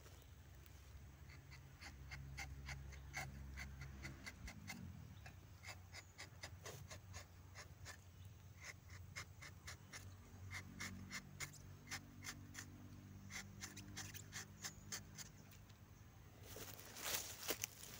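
Rubber-tapping knife shaving a thin strip of bark along the tapping cut of a rubber tree: a quick run of small scraping strokes, a few a second.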